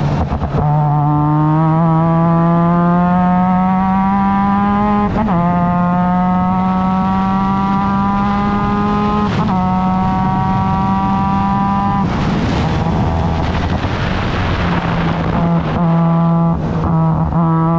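Formula Mazda race car's rotary engine accelerating hard through the gears. Its pitch climbs steadily and falls sharply at upshifts about 5 and 9 seconds in. Near 12 seconds the driver lifts off, there are quick revs on downshifts around 16 to 17 seconds, and then the engine pulls again.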